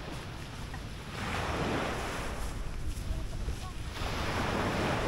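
Small sea waves washing onto a beach, surging twice, with a steady low wind rumble on the microphone.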